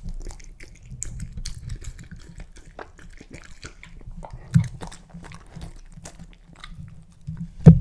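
Samoyed puppy chewing and biting soft melon pieces close to the microphone, many small smacks and clicks. Two dull thumps break in, about halfway through and near the end, the second the loudest.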